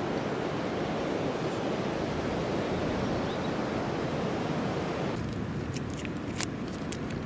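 Steady noise of wind and breaking sea surf, which cuts off abruptly about five seconds in. Then a paper wrapper crinkles in a few short, sharp rustles as small hands unwrap it.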